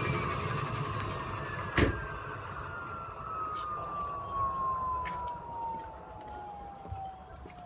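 Ford 6.0 Power Stroke diesel's turbocharger spinning down after the throttle drops: one clear whistle sliding steadily down in pitch and fading, over a low engine rumble. A single sharp knock about two seconds in.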